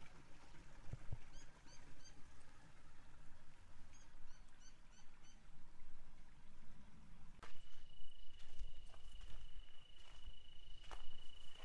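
Shallow desert stream trickling over gravel and rocks, with a bird giving two quick series of short chirps. About seven seconds in the water sound gives way to a steady, thin high-pitched tone, like an insect, with a few sharp clicks.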